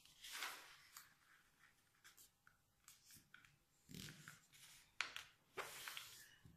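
Faint rustling and scraping of a sheet of paper being folded and creased by hand, in a few short brushes, most of them in the second half.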